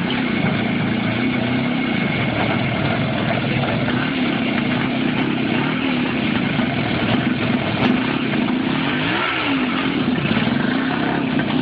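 Motorcycle engine running and being revved, its pitch wavering up and down, with one quick rev up and back down about nine seconds in.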